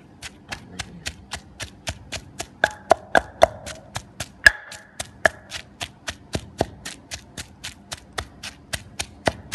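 Pestle pounding herbs, vegetables and chili in a mortar for jaew, in a steady rhythm of about three knocks a second. A few strokes land harder with a short ring.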